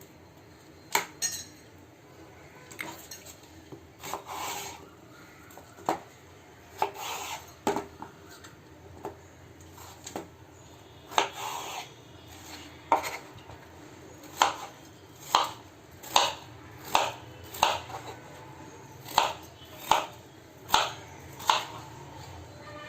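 A cucumber being peeled and cut with a blade: a series of short scraping strokes, spaced irregularly at first, then settling into a steady run of about one stroke a second in the second half.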